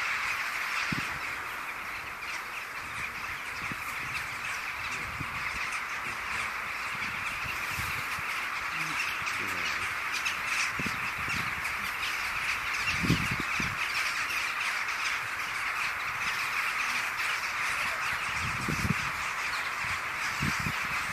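A huge flock of rooks cawing all at once, a dense continuous din as thousands gather to roost at dusk, with a few low thumps about halfway through and near the end.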